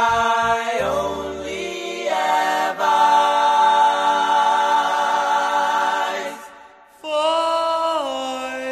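A song of layered singing voices holding long notes. The music dips briefly about seven seconds in before a new phrase begins.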